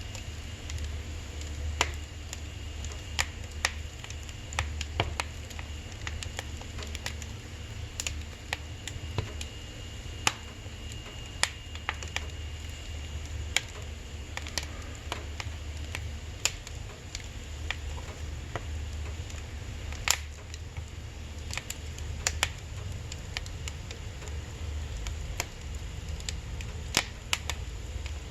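Firewood burning in a wood-burning stove, crackling with irregular sharp pops over a steady low hum.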